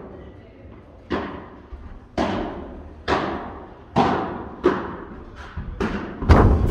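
Padel rally: the ball knocking sharply off rackets, court and glass walls, about one knock a second and quicker near the end, each ringing briefly in the hall. The loudest knock comes near the end.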